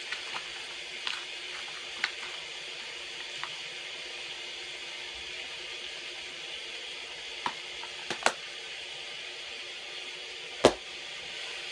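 Steady hiss of rain falling, with a scattering of sharp clicks and knocks, the loudest one near the end.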